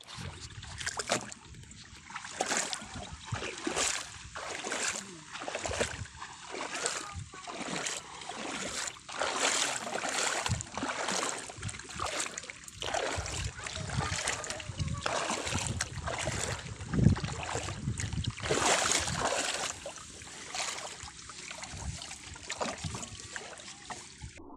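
Water sloshing and splashing in repeated surges about once a second, as of someone moving through shallow lake water.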